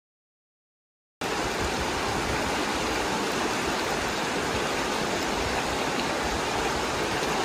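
Dead silence for about a second, then a shallow river running over stones: a steady rush of water.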